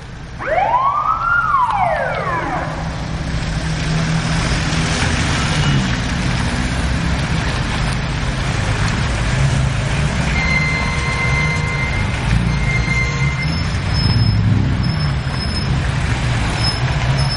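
A single siren sweep rises and falls about a second in. Then come the steady engines of a slow convoy of cars and lifted off-road 4x4s driving past. A steady high tone sounds for a few seconds about ten seconds in.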